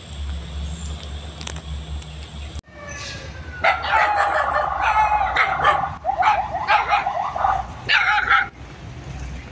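Dog barking and yelping in quick, overlapping bursts, starting about four seconds in and breaking off near the end. Before it there is only a low steady rumble.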